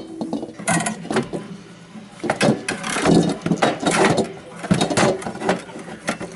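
Irregular clatter and knocks of hard objects being handled, over a faint low hum.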